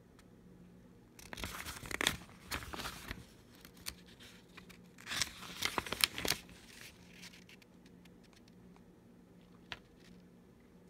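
Paper pages of a booklet-style operator's manual being turned, crinkling and rustling in two bouts, about a second in and again around five seconds in, with a single short click near the end.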